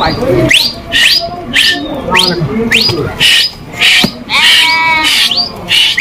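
Sheep and goats of a moving flock bleating, with quavering calls about four and a half seconds in and again at the end. Over them runs a string of short, sharp rising calls, about two a second.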